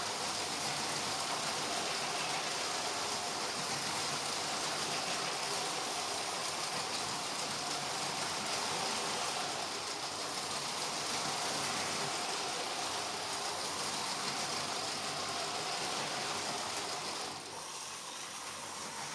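Battery-powered LEGO train motors and wheels running on plastic track: a steady whirring noise that eases slightly near the end.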